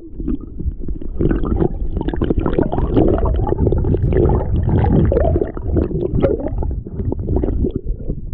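Sea water sloshing and gurgling around a camera held underwater, heard as a dense, muffled low rumble with small crackles throughout.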